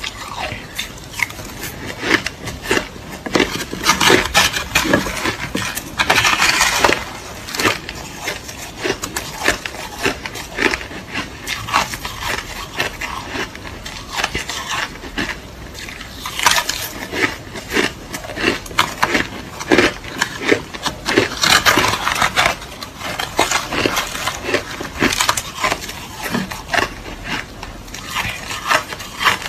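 Crushed ice being bitten and chewed close to the microphone: a steady run of sharp crunches and cracks, with denser grinding crunches in several bursts.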